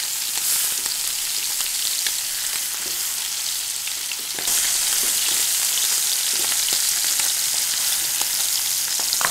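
Beef short ribs searing in hot oil in a roasting pan: a steady high sizzle, with light clicks of metal tongs as the ribs are turned. The sizzle gets louder about halfway through.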